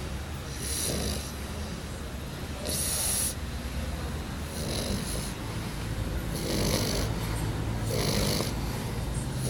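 A sleeping pet snoring, with a rasping, hissy breath about every two seconds over a steady low rumble.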